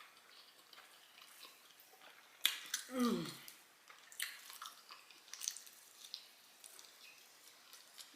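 Close-miked eating sounds: chewing with scattered wet mouth clicks and lip smacks. A short voiced sound falling in pitch comes just after three seconds in.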